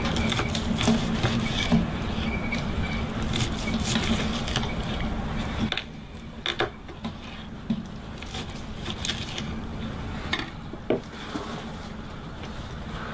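Knife slicing through a seared ribeye steak on a wooden cutting board: scattered sharp clicks and taps as the blade cuts the crust and meets the board. A steady low background noise drops away about halfway through.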